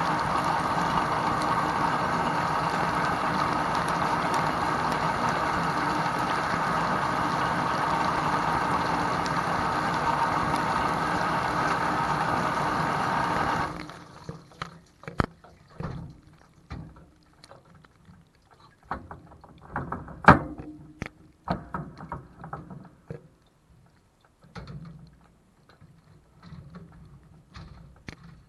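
Whirlpool WDT910SSYM0 dishwasher running its wash, with the pump and water spraying, heard from inside the tub. It stops abruptly about 14 seconds in, and scattered knocks and clicks follow.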